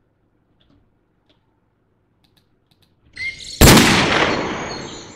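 A gunshot sound effect played back from an editing timeline: one sharp, loud shot about three and a half seconds in, with a decaying tail that cuts off suddenly when playback stops. A short rise of background sound comes just before the shot, and a few faint mouse clicks come before that.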